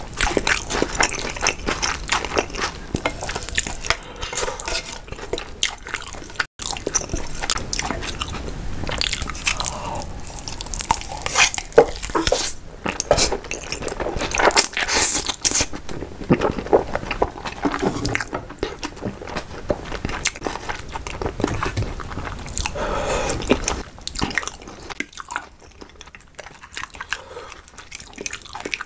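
Close-miked eating sounds: wet chewing and smacking of spicy stir-fried instant noodles and a runny fried egg. They grow quieter near the end.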